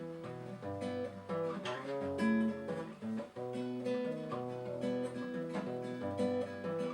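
Acoustic guitar playing the instrumental introduction to a bard song, plucked chords and notes in a steady rhythm.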